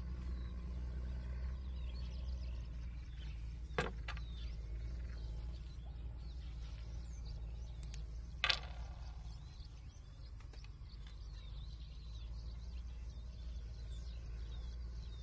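Outdoor ambience: a steady low rumble with faint bird chirps and a short high-pitched buzz repeating about once a second. Two sharp clicks break through, one about four seconds in and a louder one with a brief ring about eight and a half seconds in.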